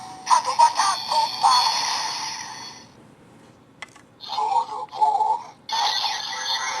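Kamen Rider Sound Rider Belt 2 toy belt playing its electronic sound effects: synthesized voice and music. One effect fades out about three seconds in, a short burst follows a second later, and another effect starts near the end.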